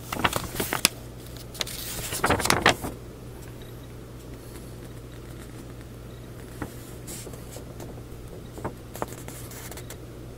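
Paper rustling and crackling as the pages of a model kit's instruction manual are turned, in two bursts within the first three seconds, followed by a few faint taps. A steady low hum runs underneath.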